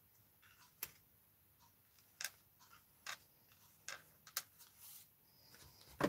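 Near silence broken by a handful of short, faint taps and paper rustles as cardstock and small paper pieces are handled on a tabletop.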